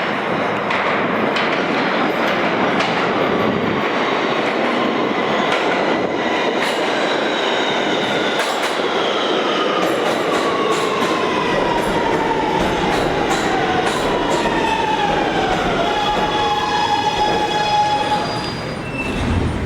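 Kawasaki R211A subway train pulling into a station: loud wheel and rail noise with a falling whine from the motors as it brakes. Near the end it settles into steady electrical tones as it comes to a stop.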